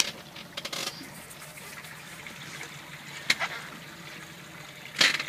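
Water sloshing against the side of a small boat, with a few short knocks, about three seconds in and again near the end, as a dentex is handled in a landing net on the seat.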